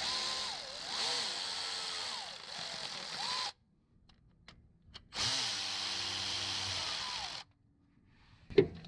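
Power drill driving in the 10 mm bolts of an engine's front timing cover: two runs of a few seconds each, the motor's whine dipping and rising in pitch, with a short pause between them.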